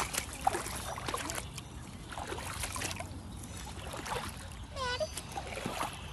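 Rubber boots wading through shallow floodwater, splashing and sloshing with each step.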